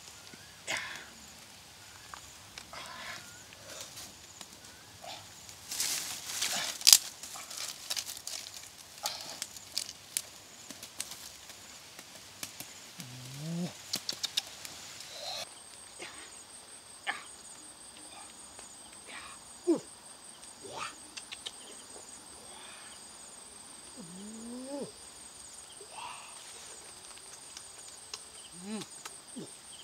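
An insect chirring steadily in a fast, even high pulse from about halfway on. Scattered clicks and taps and a few short rising squeaks come and go throughout.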